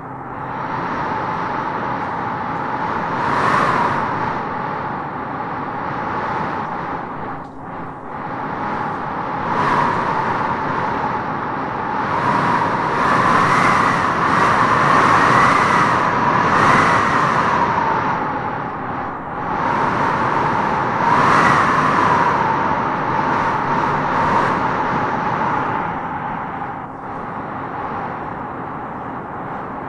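Wind blowing in gusts with a hollow whistling tone, swelling and easing several times, strongest around the middle.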